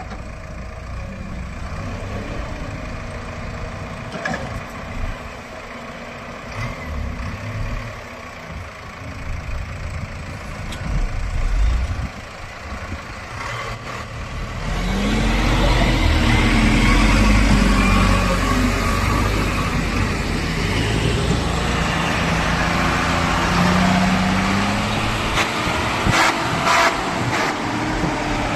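Diesel engine of a JCB backhoe loader running under load, getting louder and revving up about halfway through and revving again near the end. A few sharp knocks can be heard near the end.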